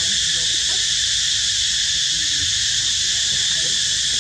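A steady, high-pitched chorus of insects that doesn't change in level, with faint low sounds beneath it.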